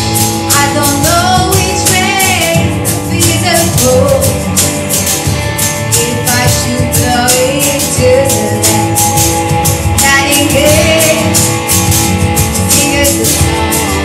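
Small band playing live: an electric guitar through a small Marshall amp and a drum kit with steady cymbal strokes, under a woman singing long held notes with vibrato.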